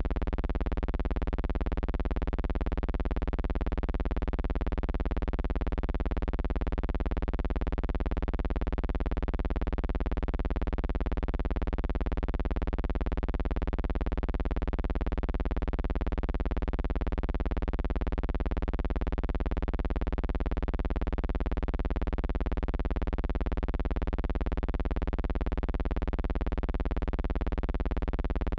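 Steady, unchanging buzzing hum with many overtones, holding one pitch and level.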